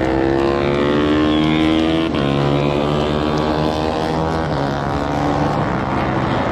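Race motorcycle engines running at high revs, their pitch climbing over the first two seconds, with a brief break about two seconds in, then several engine notes overlapping.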